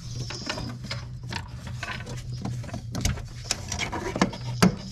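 Hands fitting clips, lines and fasteners under a car: irregular small clicks and knocks of plastic and metal parts, with a couple of sharper knocks near the end, over a steady low hum.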